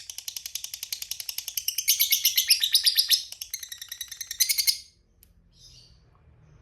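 A lovebird's long chattering trill, the 'ngekek panjang' prized by hobbyists: a fast run of high, shrill notes, about ten a second. It eases a little just past three seconds in, comes back loud and stops abruptly about five seconds in.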